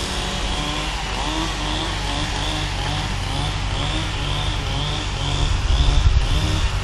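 A chainsaw running steadily on a log-building site, getting louder for a moment near the end.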